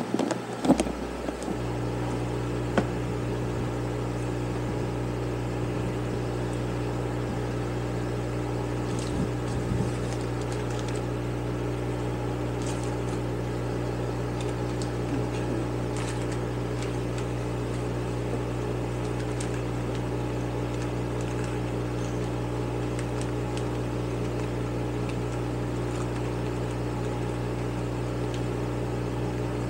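Small electric shop fan running with a steady, even hum. Faint clicks and rustles of small carburetor parts and a plastic parts bag being handled on the bench.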